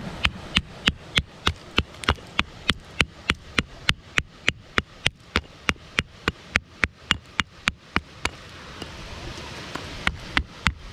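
Steel rock hammer tapping lightly and quickly on stone, about three sharp clinks a second, chipping the rock around a fossil clam. The tapping pauses for nearly two seconds near the end, then picks up again.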